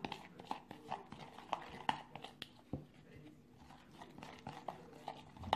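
Plastic spoon stirring instant yeast and water into a paste in a plastic bowl: faint, irregular light clicks and taps of the spoon against the bowl.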